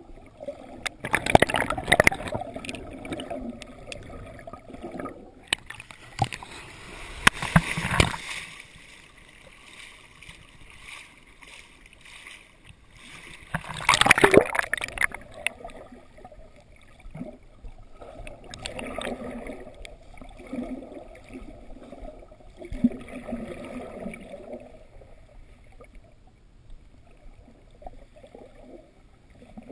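Surf water washing and splashing around a GoPro held in shallow water, with louder splashing surges about a second in, around seven seconds in, and loudest at about fourteen seconds as the camera breaks the surface into whitewater.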